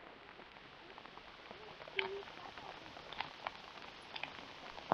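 Rain pattering on a tarp overhead: scattered drops tapping irregularly over a faint steady hiss of rain, with one louder tap about two seconds in.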